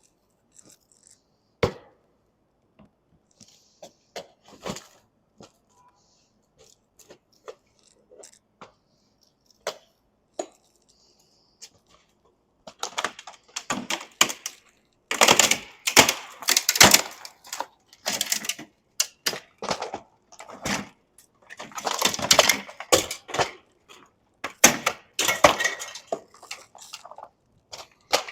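Scattered knocks and clicks, then from about halfway through, runs of loud, harsh scraping strokes: a scraper working old butyl tape and sealant off a camper roof around a vent opening.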